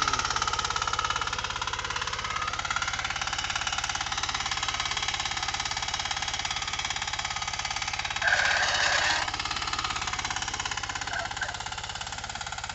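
Small KisanKraft power tiller engine running steadily under load as it tills, a fast even knocking beat that fades slightly as the machine moves away. About eight seconds in, a louder sound lasting about a second rises over the engine.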